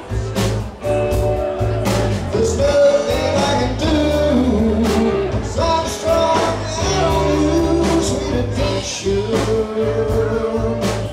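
Live rock band playing: a man sings over a Rickenbacker electric bass and drums with a steady beat, the voice coming in about two seconds in.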